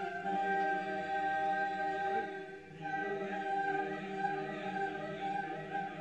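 Mixed choir singing a cappella, holding long chords. The sound dips briefly about halfway through, then the voices come back in on the next chord.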